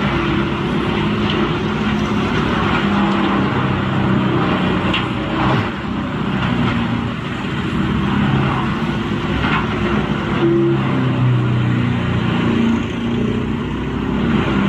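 Heavy wood-processing machine's engine running steadily under load, with a few sharp cracks breaking through.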